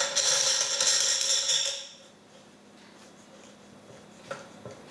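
Racket being fitted into a stringing machine's mounting post: a rasping scrape for about two seconds, then a couple of light clicks near the end.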